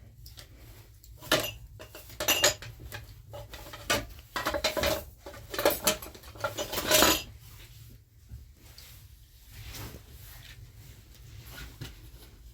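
Kitchenware clinking and clattering in a string of sharp knocks with short metallic ringing, busiest between about one and seven seconds in, then quieter.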